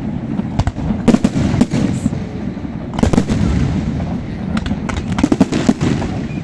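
Aerial fireworks shells bursting in quick volleys of sharp bangs: clusters about a second in and around three seconds, then a dense run near the end, over a steady low rumble.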